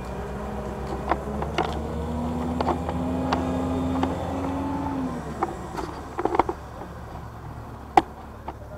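Diesel engine of a truck-mounted crane running, its revs rising about two seconds in, holding, then dropping back about five seconds in, with scattered sharp clicks and knocks throughout.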